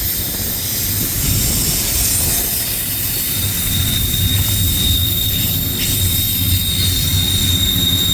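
Freight train cars rolling past: a steady low rumble and hiss of steel wheels on the rails. A thin, steady, high-pitched wheel squeal comes in about halfway and holds.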